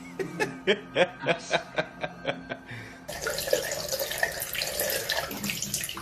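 A quick series of short, sharp sounds, about four a second, then after an abrupt cut about three seconds in, water running steadily from a tap into a sink or tub.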